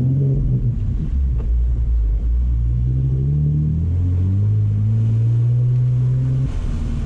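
Off-road truck engine pulling through deep muddy water, with water splashing against the body at first. The engine note then rises steadily as the truck climbs out, and drops about six and a half seconds in.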